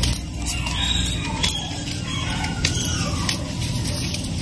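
Small kitchen knife scraping and trimming the ridged skin of a bitter gourd, a few separate strokes, with high calls gliding in pitch in the background.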